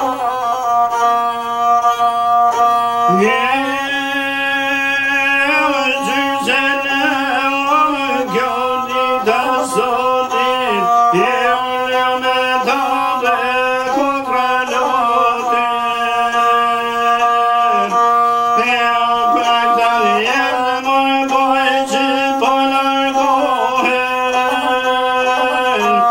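A man singing an Albanian song to his own lahuta, the single-string bowed folk fiddle. The voice holds long notes that waver and slide between phrases over the instrument's steady line.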